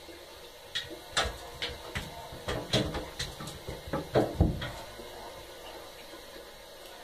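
A cat scrambling and pouncing in an empty bathtub: a run of about a dozen sharp taps and thumps of its paws and claws against the tub over some four seconds, loudest near the end of the run.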